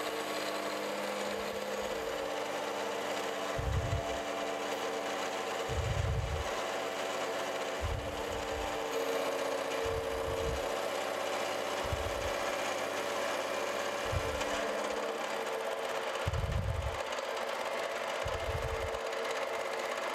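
Vertical milling machine running with a face mill taking a light 50-thousandths decking cut across the top of a steel vise jaw: a steady hum with a mid-pitched whine, and low thuds about every two seconds.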